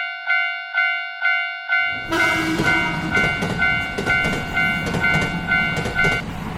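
Japanese railroad crossing alarm ringing its clanging bell tone about twice a second. About two seconds in, a passing train's loud rushing rumble joins it, with the bell still ringing, and both cut off suddenly at the end.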